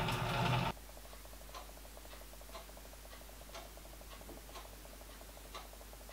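Deckel milling machine running, cut off abruptly under a second in. Then faint, steady ticking about once a second, with a quieter, faster ticking beneath it.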